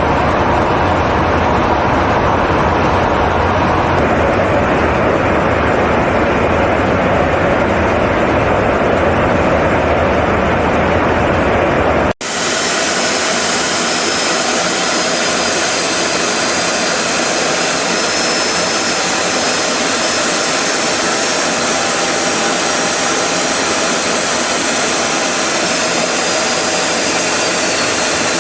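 Steady jet aircraft engine noise with a deep rumble. About twelve seconds in it cuts abruptly to a brighter, hissier jet noise with a faint high whine.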